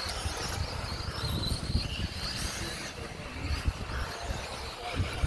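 Electric 1/10-scale RC off-road buggies lapping a clay track: the faint high whine of their motors rises and falls as they accelerate and brake, over a constant low rumble.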